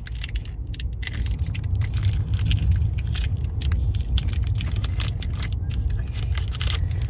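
Plastic wrapper of a packet of sandwich cookies crinkling and crackling as it is opened, over the steady low rumble of a moving train.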